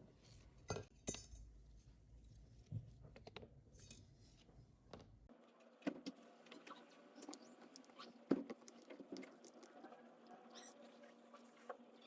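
Faint scattered clicks, taps and light rustles of small plastic and metal parts of a Sony Ericsson K800 phone being handled, with one sharper click about eight seconds in.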